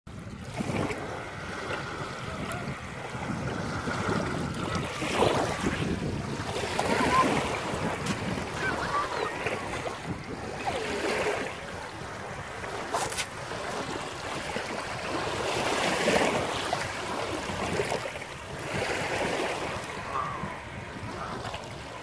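Small sea waves washing in and draining back over a pebble-and-sand beach, swelling and fading every few seconds.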